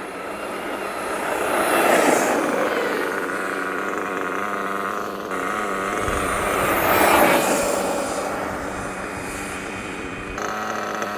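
Electric Kyosho USA-1 VE RC monster truck on a speed run, passing on tarmac twice, each pass rising and then fading. Under it runs the steady buzz of a nitro RC engine idling.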